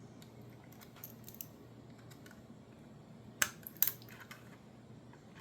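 Small clicks and light plastic rattling of wire connectors being plugged back into a dishwasher's control panel, with two sharper clicks about three and a half seconds in.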